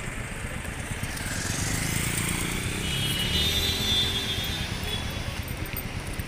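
A motorcycle engine passing close by, growing louder to a peak about four seconds in and then fading.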